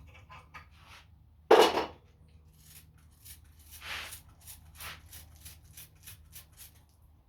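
Hand tap cutting threads into the end of a Honda GX270 crankshaft, the tap handle giving short metallic clicks about three or four a second, with one loud knock about a second and a half in.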